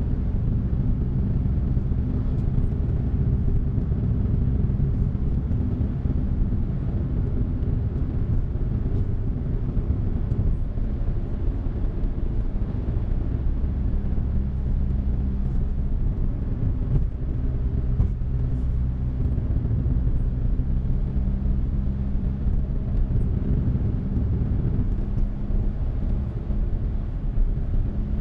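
Suzuki Hustler kei car driving at steady speed, heard from inside the cabin: an even rumble of engine and road noise with a low engine hum.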